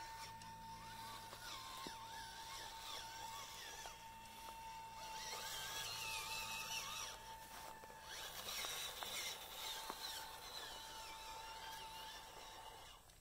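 Small brushed electric motor and gearbox of a hobby-grade RC truck whining as it drives, the pitch wavering up and down with the throttle. It is loudest around the middle, when the truck passes close. A steady high-pitched tone sounds throughout.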